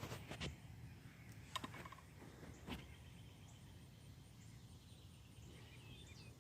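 Faint outdoor ambience with distant birds chirping and singing, a faint high ticking repeating about four times a second, and a few soft clicks in the first three seconds.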